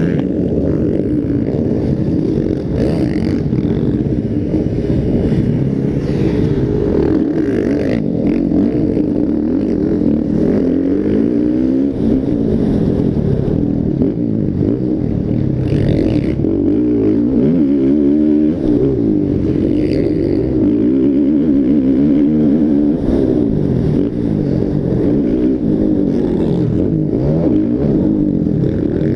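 Several motocross bikes racing, their engines revving up and down through the gears over one another without a break.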